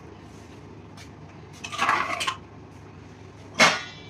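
Steel kitchen pots and utensils clattering on a counter: a short rattle about halfway through, then a sharp metal clank that rings briefly near the end.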